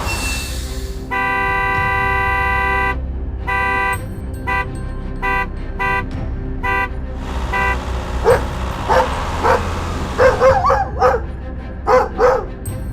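A vehicle horn sounds one long blast of about two seconds, then a run of short toots. From about eight seconds in, a dog barks several times.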